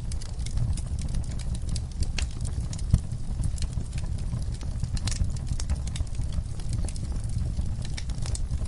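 Wood campfire crackling: frequent sharp pops and snaps of burning wood over a steady low rumble, with one louder pop about three seconds in.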